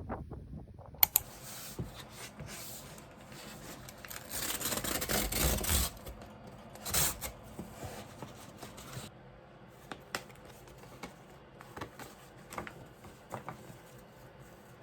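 Handling sounds at a study desk: a sharp click about a second in, a paper-like rustle for about two seconds starting around four seconds in, another short rustle near seven seconds, then scattered light clicks and taps.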